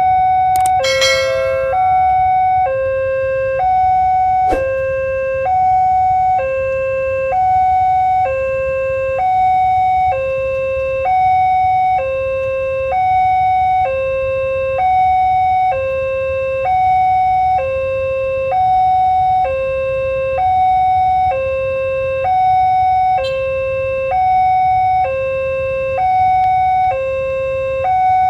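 Indonesian railway level-crossing warning alarm sounding a steady two-tone signal, a higher tone and a lower tone alternating about once a second, warning that a train is approaching. A few brief clicks come about a second in and again a few seconds later.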